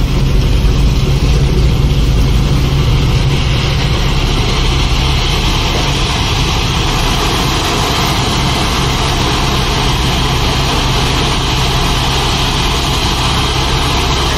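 Diesel engine of a Tata Signa 5525.S tipper truck running steadily while its hydraulic hoist slowly raises the tipping body. Crushed stone slides off the tipping body throughout, adding a steady hiss.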